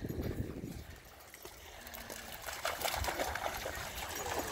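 Splashing as a dog wades through shallow water, starting about halfway through and going on in quick, uneven splashes.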